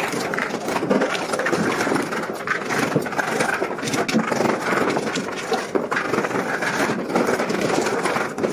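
Construction-site din: a machine running steadily with scattered sharp knocks of carpenters' tools on timber.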